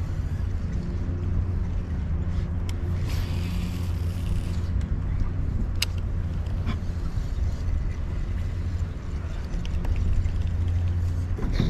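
Boat motor running steadily with a low hum, with a couple of sharp clicks along the way.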